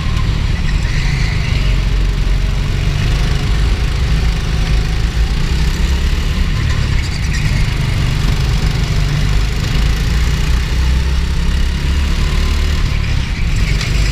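Go-kart engine running steadily at speed, heard from the kart itself, loud and deep.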